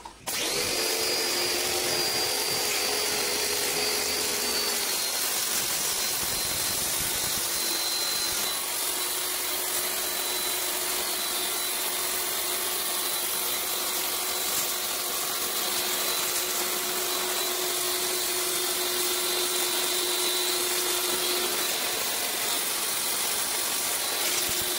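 APR AP73 electric high-pressure washer starting up as the trigger is pulled, then running steadily with a high whine that drops a little in pitch over the first few seconds, its water jet hissing against the floor tiles.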